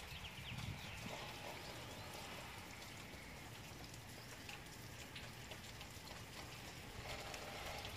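Steady rain falling outdoors, a faint even hiss.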